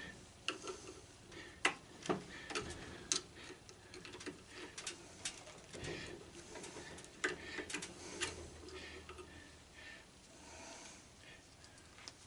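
Scattered light metallic clicks and taps, irregularly spaced, from a thin steel tool being worked into a propane grill regulator held in a bench vise.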